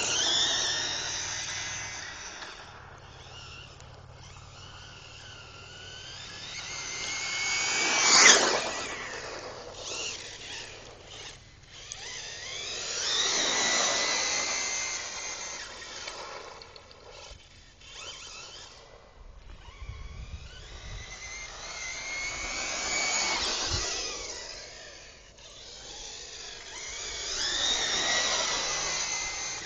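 Reely radio-controlled car driven at speed, its motor whining and sweeping up and down in pitch as it races toward and away from the listener. It passes loudest about five times, most sharply about eight seconds in.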